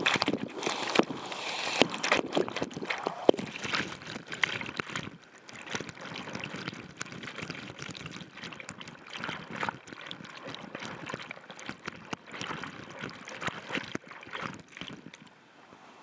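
Rushing waterfall water heard with the microphone right in the splashing current, a steady rush broken by many sharp spatters of water striking the microphone. Loudest for about the first five seconds, then quieter.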